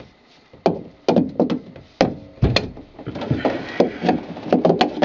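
Sharp knocks and clanks of hand tools working at a bolted through-hull fitting in the boat's hull, trying to loosen it. A few separate knocks in the first half, then a quicker run of knocks and clatter.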